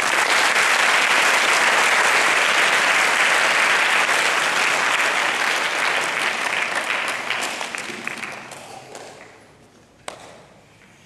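Audience clapping that starts suddenly, holds for about seven seconds, then dies away.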